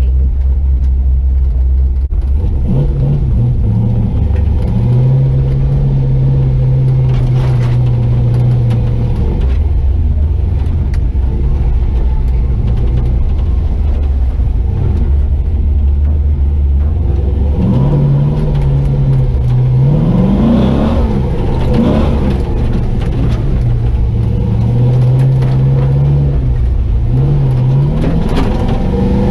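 Chevy 4x4 truck with a swapped-in 6.0 L LY6 V8 driving under load, the engine holding steady revs for stretches and climbing several times, most clearly in the second half. The drive goes through an SM465 four-speed manual gearbox that has lost third gear.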